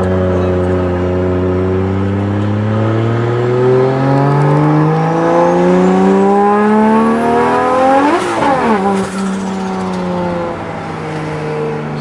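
Nissan Skyline R34's straight-six engine heard from inside the cabin, pulling hard under acceleration with its pitch climbing steadily for about eight seconds. The revs then drop sharply and settle into a lower, steady drone.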